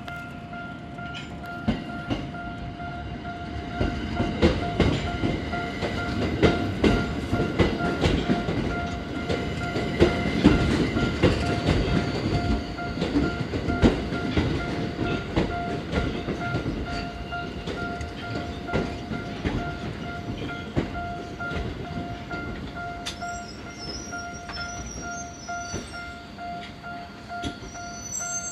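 A Japanese railway level-crossing alarm rings in a steady, fast-repeating tone while a Ginza Line subway train rolls across, its wheels clacking over the rail joints. The train noise builds to its loudest about ten seconds in, then eases, and a brief high squeal comes near the end.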